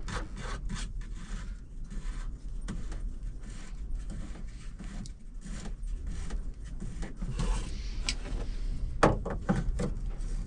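Scattered clicks, knocks and rubbing of hands working cab controls and parts, with two sharper knocks near the end, over a steady low hum.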